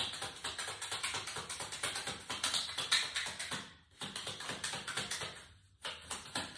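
A deck of oracle cards being shuffled by hand: a quick, even run of light clicks and taps, about eight or nine a second, with two short breaks in the second half.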